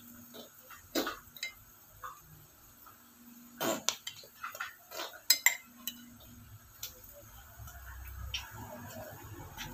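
Wooden spatula knocking and scraping against a frying pan as pancakes are turned: a string of irregular clacks, the sharpest about four and five seconds in, with a low rumble in the last few seconds.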